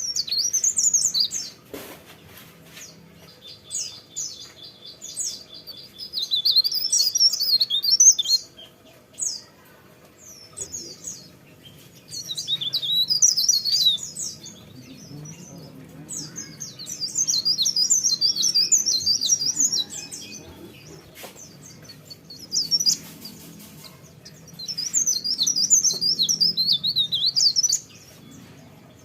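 A cikrak daun (leaf warbler) singing in long, fast twittering rolls, high-pitched and jumping rapidly up and down. There are about half a dozen bursts of a few seconds each, with short pauses between them.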